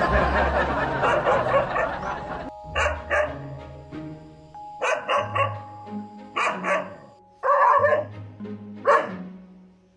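A dog barking repeatedly in short sharp barks, often two or three close together, at its own reflection in a mirror, over background music.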